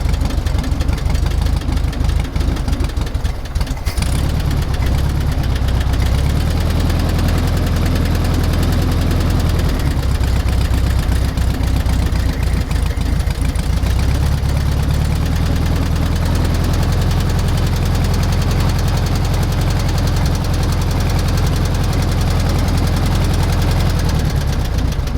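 1973 VW Super Beetle's air-cooled 1600 flat-four engine running cold on a freshly rebuilt carburetor, with a slightly flat note. The revs rise and fall a few times before the engine cuts out near the end.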